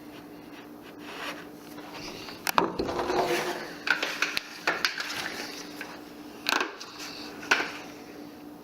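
Hard objects knocking and scraping: a scraping clatter about two and a half seconds in, then single sharp knocks every second or so, over a steady low hum.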